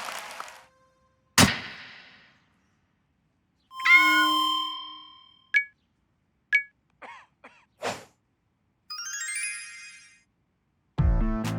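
A string of cartoon sound effects: a sharp hit about a second in, a ringing chime a few seconds later, two short pings, and a rising run of sparkly tones. Music starts near the end.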